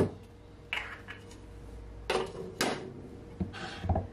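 Kitchenware being handled on a counter: a sharp knock right at the start, then several short clatters and knocks.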